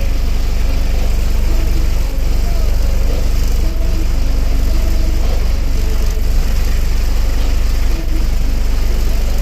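Car audio subwoofers playing deep bass at competition volume: a loud, steady low rumble with no breaks.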